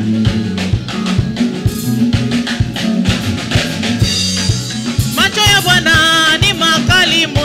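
Live gospel band music with a steady, upbeat drum-kit beat over a sustained bass line; about five seconds in, singing voices come in over it.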